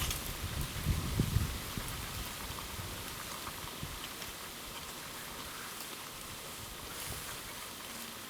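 Wood campfire burning with a steady hiss and scattered small crackles and pops. A few low knocks or rumbles in the first two seconds.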